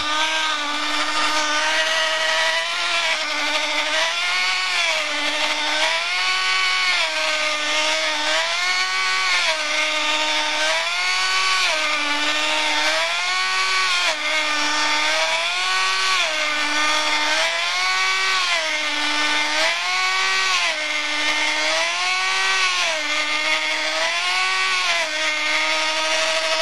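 Small battery-powered portable USB blender's motor running as it blends fruit juice, a steady whirr whose pitch swells up and drops back about every two seconds.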